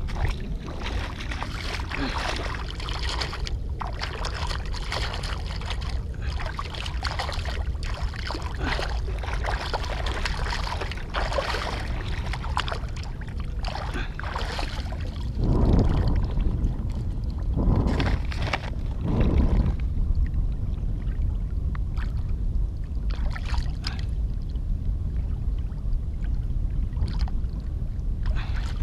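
Shallow seawater splashing and sloshing around the feet and hands of a wading angler landing a small hooked fish, with a steady low rumble underneath. The sloshing grows louder for a few seconds about halfway through.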